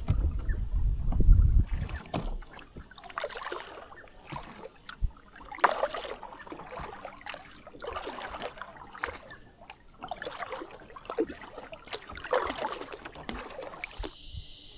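Water splashing around a kayak in regular bursts about every two seconds, with wind rumbling on the microphone for the first couple of seconds. Near the end the sound cuts off abruptly.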